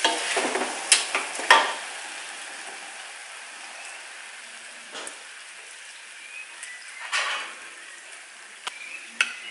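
Sugar-and-soy-glazed pork belly sizzling in a wok, with a metal ladle knocking and scraping against the wok twice about a second in. After that the sizzle settles to a soft steady hiss, with a brief swell and a few small clicks near the end.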